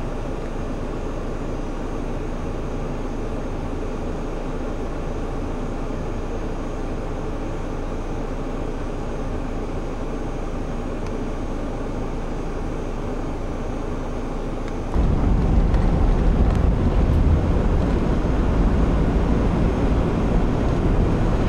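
A steady, even outdoor hiss, then about fifteen seconds in a sudden cut to the louder low rumble of a car driving, heard from inside the cabin.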